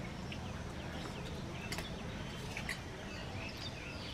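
Small birds chirping in short, repeated calls, with a couple of light clinks of spoons on steel plates about halfway through.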